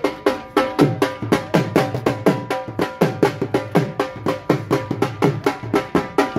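Dhol drumming in a fast, driving bhangra rhythm, several strokes a second, the deep bass strokes dropping in pitch, with a held pitched tone above the drumming.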